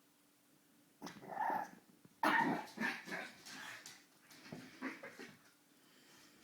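Puppy barking during play, a series of short calls starting about a second in, loudest about two seconds in, and dying down by about five seconds.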